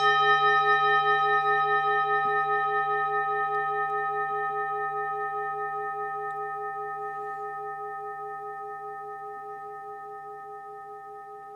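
A singing bowl struck once, its several tones ringing on and slowly fading, with a steady wavering pulse in the lower tone.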